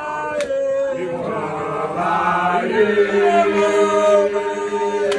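Group of young men chanting an igwijo, a Xhosa group song, together in unison with held notes; the voices shift to a lower, longer held chord about two to three seconds in. A single sharp click sounds about half a second in.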